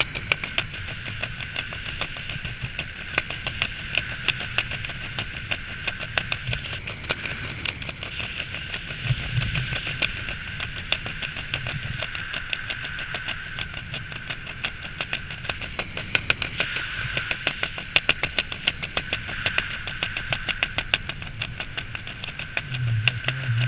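Wind rushing past the camera during canopy flight, with a fast, irregular rattling flutter and a steady whine throughout.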